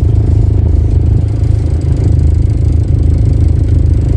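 Hired canal boat's engine running steadily, a loud low hum with a fast even pulse.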